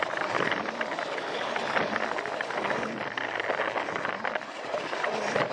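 Battery-powered Plarail toy train running on plastic track: a steady motor and gear whir with a rapid, irregular clatter of clicks from the wheels and track joints.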